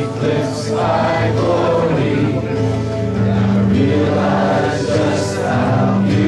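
Live worship band playing a praise song: several voices singing together over keyboard and guitars.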